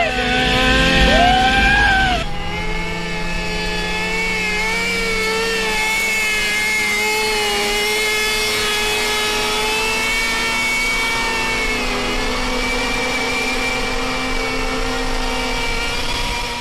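Motorcycle engine held at steady high revs, its pitch wavering only slightly, with an abrupt change in the sound about two seconds in.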